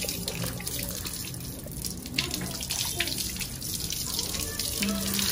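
Water poured from a small plastic pail over a person's head, splashing through the hair and onto the floor as conditioner is rinsed out.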